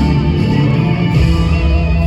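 Live rock band music, with guitar over sustained bass notes.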